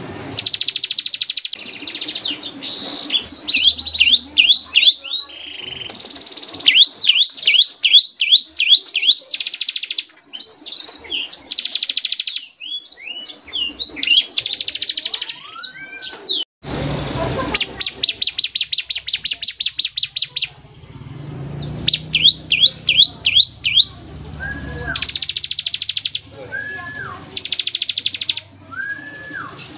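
A ciblek (prinia) singing in fast rapid-fire bursts: long trains of quick, high repeated notes and chattering trills, separated by short pauses. In the second half a few short rising-then-falling whistled notes come between the bursts.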